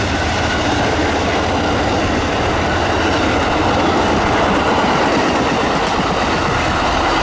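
Amtrak passenger train passing close by: a loud, steady rumble of wheels on the rails with clickety-clack from the rail joints.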